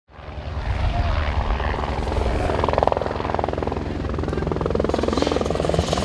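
A rally car's turbocharged four-cylinder engine approaching at speed, its revs climbing and dropping through gear changes over a steady low drone. The sound fades in at the start.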